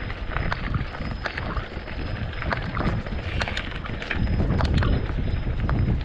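Wind buffeting the microphone during a mountain bike ride, with scattered clicks and rattles from the bike on rough ground; the rumble grows louder about four seconds in.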